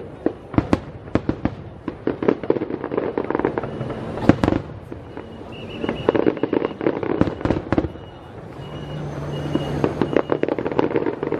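Aerial fireworks going off: a dense run of sharp bangs and crackling from bursting shells, with the loudest report about four seconds in.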